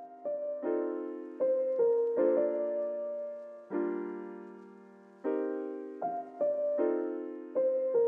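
Background music: a piano playing slow chords, each struck and left to fade.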